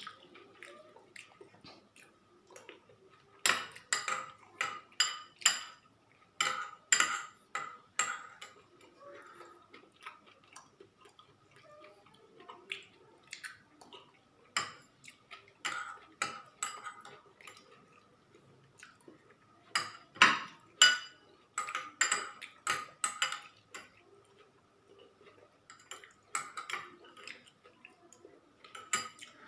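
Close-up eating sounds: chewing and sharp clicks and clinks of food and utensils against a plate, coming in bunches with quieter gaps, over a faint steady high tone.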